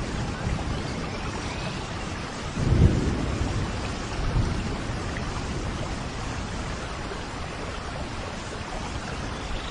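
Steady rain ambience with a low rumble of thunder swelling up a little under three seconds in, and a smaller rumble shortly after.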